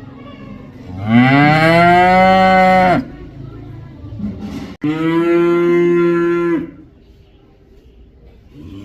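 A cow mooing twice: a long moo that rises in pitch at its start and then holds, and a second, slightly shorter, steady moo.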